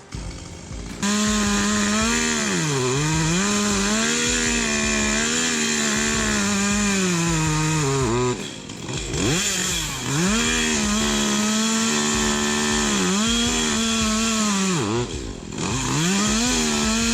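Chainsaw running at high revs, starting abruptly about a second in. Its pitch drops and climbs back several times as the throttle eases or the chain bogs.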